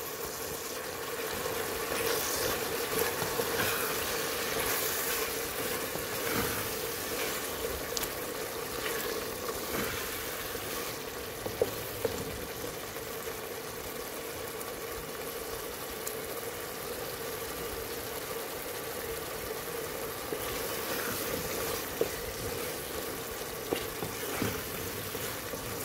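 Mutton liver frying in masala with spring onions in an aluminium pressure cooker pan, sizzling steadily as it is stirred with a wooden spatula, at the bhuna stage. A steady hum runs underneath, with a few sharp clicks.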